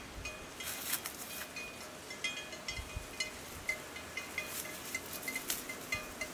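Irregular light metallic clinks and taps, many short knocks with a brief bright ring, as of metal kitchen utensils and cookware being handled.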